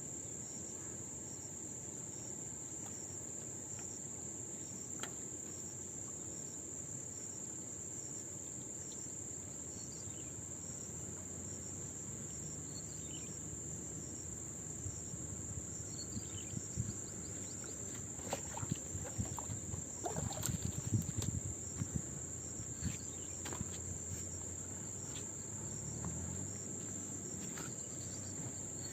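Insects in summer vegetation keep up a continuous, steady high-pitched drone with a faint regular pulse. About two-thirds of the way in there is a short spell of scattered clicks and knocks.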